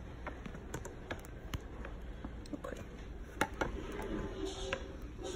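Scattered light clicks and taps of hard plastic parts being handled, as a rocker's plastic rail is pushed into its plastic frame.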